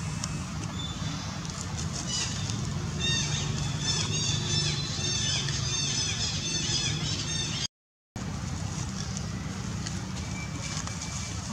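Rapid high chirping calls, many short rising-and-falling notes overlapping, over a steady low rumble. The calls start about two seconds in and stop when the sound cuts out completely for a moment.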